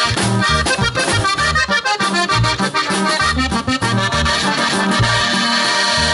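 Norteño band playing an instrumental passage of a corrido, with no singing: accordion carrying the melody over strummed guitar, drum kit and a steady, even bass beat.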